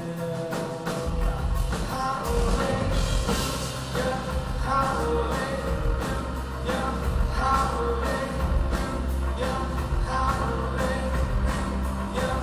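Music with singing and a drum beat; a heavy bass line comes in about a second in.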